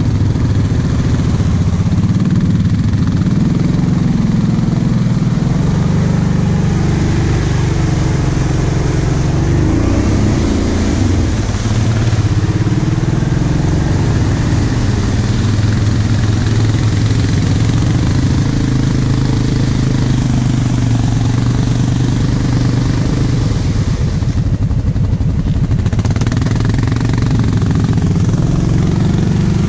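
Quad (ATV) engine running under load, its pitch rising and falling with the throttle as it wades through muddy water, over a steady wash of splashing.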